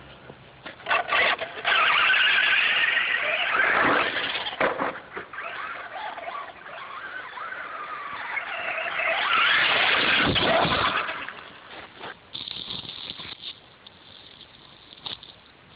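Traxxas Slash radio-controlled truck's motor whining as it is driven, its pitch sweeping up and down with the throttle, loudest in two runs and fainter near the end.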